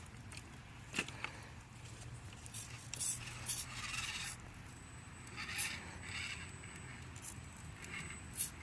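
A 1/10 scale RC rock crawler working over the course obstacles: soft scraping and scratching of its tyres and chassis, with scattered sharp ticks.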